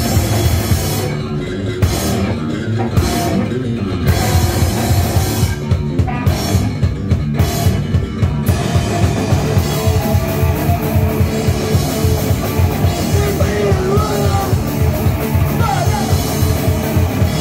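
Punk band playing live: distorted electric guitar, bass and drum kit at full volume. The first half is stop-start, with short breaks between hits, and then a fast, steady beat runs on.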